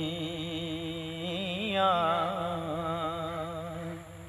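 A male voice singing Punjabi Sufi kalam, holding one long drawn-out note with a wavering vibrato. The pitch lifts about two seconds in, and the note fades out near the end.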